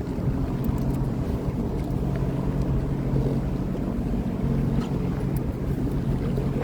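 Sea-Doo Fish Pro personal watercraft engine running steadily under way, with water rush and wind on the microphone.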